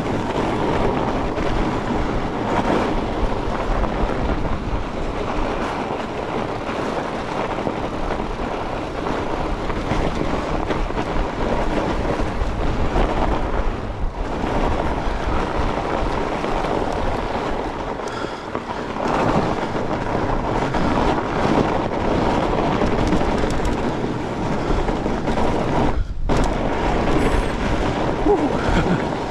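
Continuous rolling noise of a fat bike ridden along a frozen, rutted trail: the fat tyres rumbling over the ground and the bike rattling.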